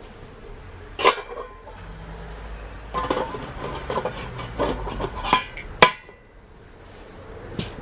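Several sharp metal clanks and clinks, each with a brief ring: one about a second in, then a run of them between three and six seconds in, over a low hum.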